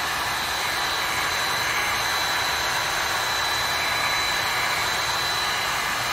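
Heat gun running steadily, a rush of hot air with a thin steady whine on top, warming the adhesive of grip tape pressed onto a pistol frame.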